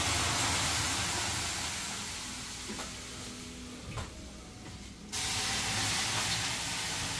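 Water ladled onto hot sauna stones, hissing into steam. The hiss fades away over a few seconds, and a second ladleful starts a fresh hiss about five seconds in.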